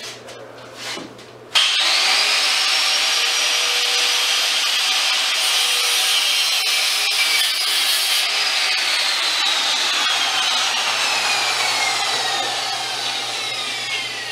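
Angle grinder with a cut-off disc starting up about a second and a half in and cutting through expanded metal made of woven quarter-inch rod. A high whine runs over a steady grinding noise, falling slowly in pitch through the second half.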